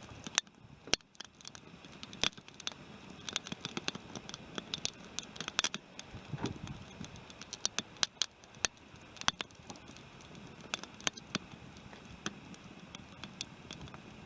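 Small wood campfire crackling, with irregular sharp pops and snaps, several a second in bursts, over a low hiss.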